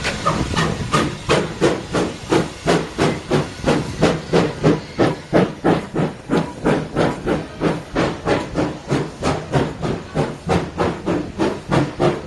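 Steam tank locomotive working a train past at close range, its exhaust chuffing steadily at about three beats a second.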